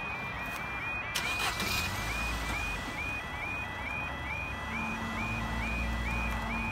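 Level crossing yodel alarm sounding, a quick repeating warble that warns road users the barriers are coming down for an approaching train. A vehicle engine rumbles underneath from about two seconds in.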